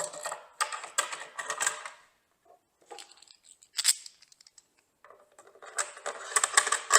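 Small hard parts of a drill press fence kit's accessories clicking and rattling as they are handled, in two bursts of quick clicks with a single click between.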